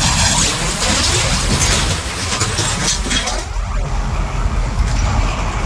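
A moving bus, its engine rumbling under loud wind buffeting a microphone held out of the window. The high hiss eases a little over halfway through.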